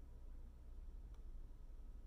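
Very quiet room tone with a steady low hum, and one faint short click about halfway through.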